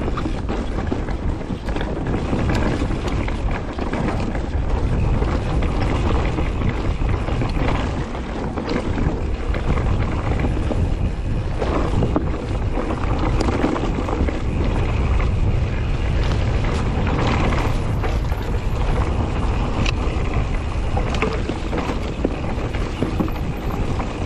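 Wind rushing over the camera microphone while a mountain bike rolls fast down a dirt forest trail, with tyre noise on the dirt and scattered knocks and rattles from the bike over bumps.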